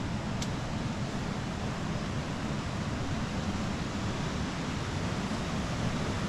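Steady rushing of a mountain river flowing beside the path.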